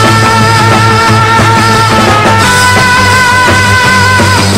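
Background music: a held lead melody with a slight waver over steady bass notes.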